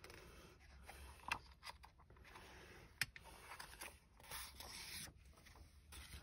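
Faint handling of a paper notebook as it is opened and laid flat: the cover and pages rustling and scraping, with two light clicks about a second and three seconds in.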